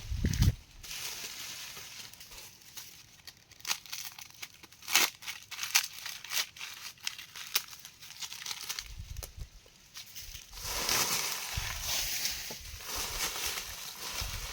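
Leaves and stems crackling, crumpling and snapping as they are handled or trodden through, with scattered sharp snaps, then a denser, steady rustling near the end.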